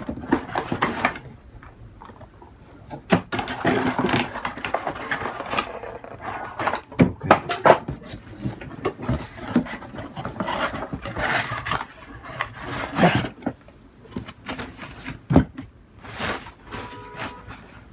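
A box and its packaging being opened and handled: irregular scraping, rustling, knocks and clicks.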